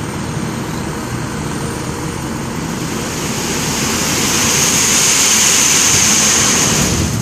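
Diesel engine of a Mitsubishi Fuso dump truck running while its hydraulic tipper bed rises. A hissing rush swells about halfway through and fades near the end.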